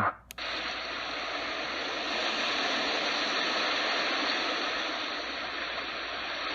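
Rantizon sound machine playing its ocean-waves sound through its small up-facing speaker: a steady rushing hiss of surf that swells slowly and eases off again. It opens with a brief drop-out and a click as the setting changes over.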